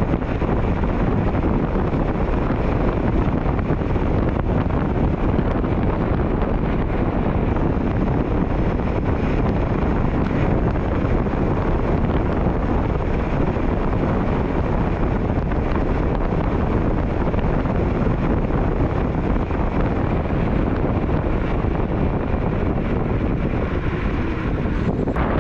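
Wind rushing over the microphone while riding a Mototec Thor 60V electric scooter at speed: a loud, steady, unbroken rush, heaviest in the low range.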